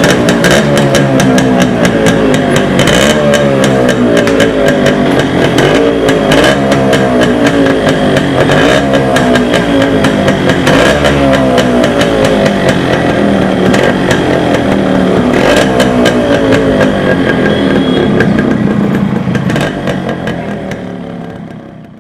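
Yamaha RX100 two-stroke single-cylinder engine being revved up and down again and again, fading out near the end.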